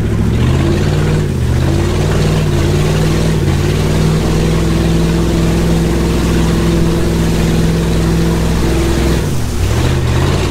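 Pickup truck engine pulling hard through deep floodwater, its pitch dipping and climbing again several times, most sharply near the end. Over it runs a steady rushing and splashing of water thrown up against the truck.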